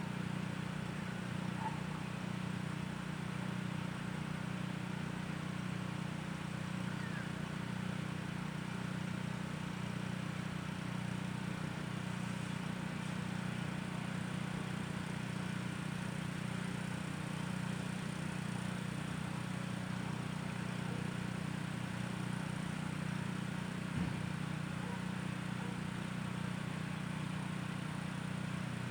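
Steady low hum of distant machinery running without change, over faint outdoor background.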